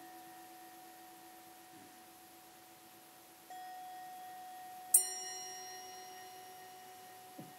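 Bell-like chimes: several steady ringing tones held together, a new one coming in about three and a half seconds in, then a sharp metallic strike about five seconds in that rings and slowly fades.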